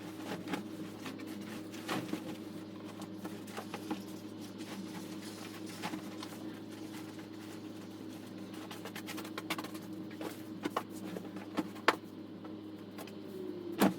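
A steady low hum in a small room, with scattered light clicks and taps over it and a sharper knock near the end.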